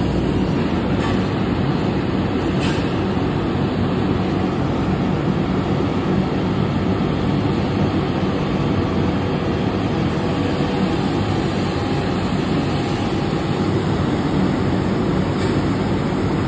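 Fire trucks' diesel engines idling steadily in the station bays, a low, even engine rumble.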